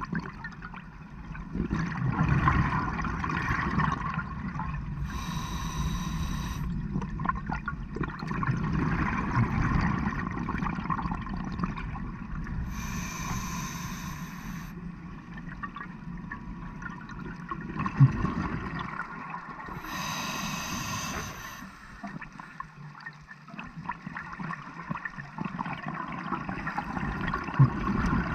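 Scuba diver breathing through a regulator: a short hiss on each inhalation alternating with a longer rush of bubbles on each exhalation, in a slow cycle of about three breaths. Two brief sharp clicks come in the second half.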